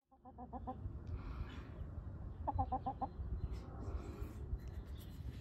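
Backyard hens clucking in two quick runs of short notes, one right at the start and another about two and a half seconds in, over a steady low rumble.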